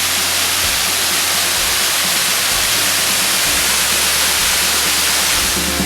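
Waterfall rushing steadily: a dense, even roar of falling water.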